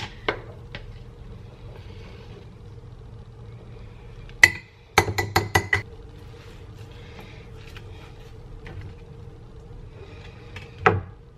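A metal spoon clinks against a drinking glass, once sharply and then in a quick run of about six ringing taps, scraping tahini off into the glass. There is one more knock near the end, over a low steady hum.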